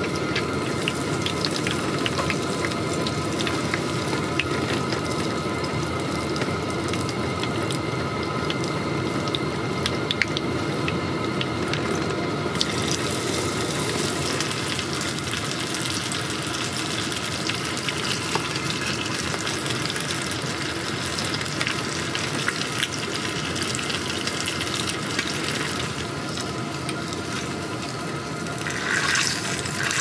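Beer-battered walleye deep-frying in a small pot of oil on a canister camp stove: a steady sizzle full of small crackles. The sizzle grows louder and brighter about twelve seconds in.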